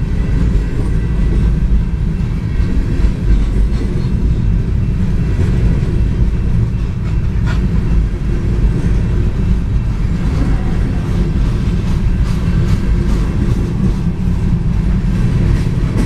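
Empty covered hopper cars of a freight train rolling past: a steady, loud rumble of steel wheels on rail, with a few sharp clicks, one near the middle and several toward the end.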